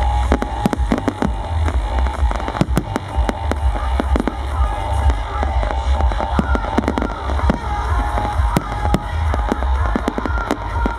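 A dense barrage of fireworks going off, an irregular run of sharp bangs and crackles, several a second, with music playing underneath.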